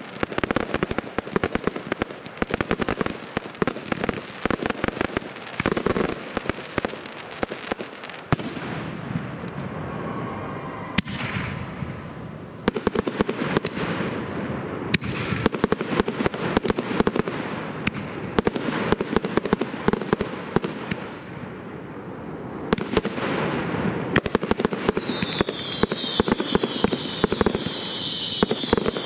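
Professional firework display: a fast, near-continuous barrage of bangs and crackling pops from aerial shells bursting, easing off briefly about a third of the way in, with a high hissing sound joining near the end.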